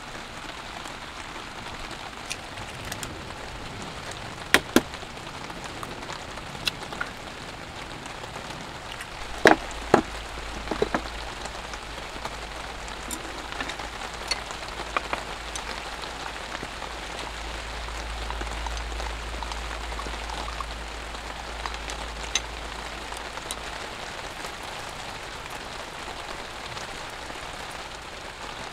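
Steady rain falling, with scattered sharp taps and knocks from cooking work with a knife, bowl and utensils, the loudest a few close pairs in the first third.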